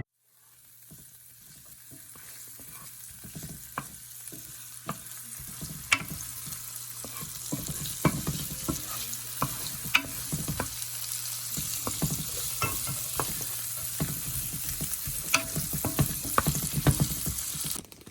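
Chopped onion and minced garlic sizzling in butter and olive oil in a frying pan. The sizzle builds over the first few seconds, and a utensil knocks and scrapes against the pan again and again as the food is stirred.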